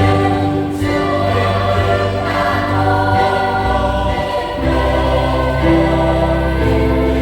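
Choir singing a Catholic Easter hymn in long held notes over instrumental accompaniment, the low notes changing a few times.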